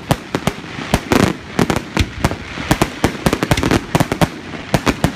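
Fireworks going off in a rapid finale barrage: a dense, irregular run of sharp bangs, about four a second, with crackling between them.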